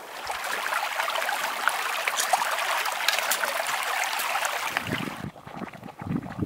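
Shallow creek water rushing over stones, with a few splashes as a hiker wades across. About five seconds in it cuts to a quieter, irregular low gurgling from a hot-spring pool in a geyser basin.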